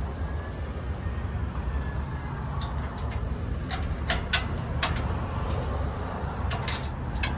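Sharp metallic clinks of hardware and metal parts being handled against a steel bumper: a few scattered clicks and then a quick cluster near the end, over a steady low rumble.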